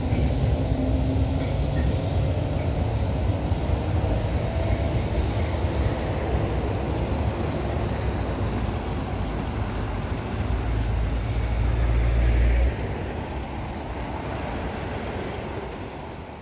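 Road traffic beside a tram stop: a steady rumble of passing cars and lorries. A deep rumble swells and stops abruptly about twelve seconds in, and the sound fades out near the end.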